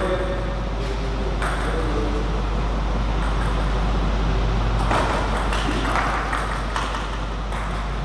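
Table tennis ball being struck back and forth, a string of sharp clicks off the rackets and the table at uneven intervals, over a steady low hum.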